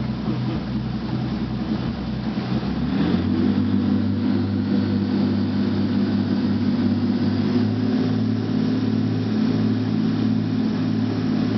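Twin Yanmar diesel engines of a jet boat running, picking up speed about three seconds in and then holding a steady pitch under load.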